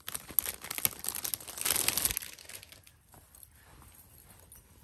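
Clear plastic bag crinkling loudly as a folded T-shirt is pulled out of it, dropping after about two seconds to faint rustles.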